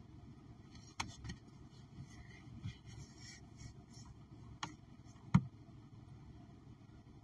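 A low, steady background rumble with a few sharp clicks. The loudest click comes about five seconds in.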